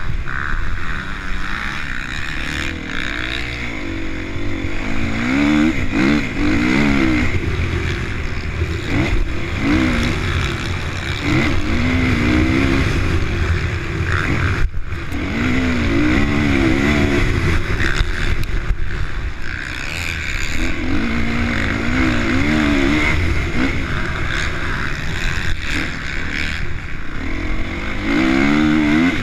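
Honda CRF450 motocross bike's single-cylinder four-stroke engine at race pace, its revs rising and falling again and again as the rider works the throttle through the gears. The sound cuts out sharply for a moment about fifteen seconds in.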